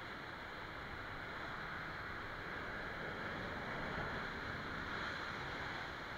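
Steady rush of sea surf breaking at the foot of the cliff, swelling a little about three to five seconds in.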